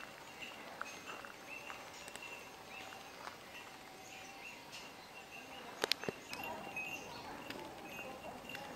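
Quiet woodland ambience with faint, repeated high chirping. A few sharp clicks come close together about six seconds in.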